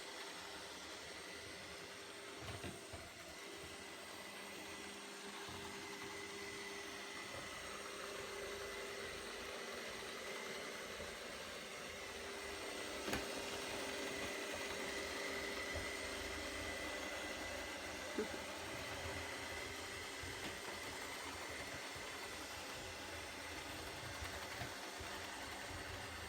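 ILIFE robot vacuum running with a steady motor whir and hiss, with a couple of sharp knocks in the middle.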